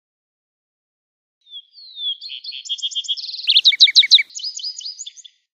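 Lark sparrow singing one song, starting about a second and a half in: a few falling notes, then a jumbled run of rapid trills and loud sweeping notes, ending in quicker trilled notes shortly before the end.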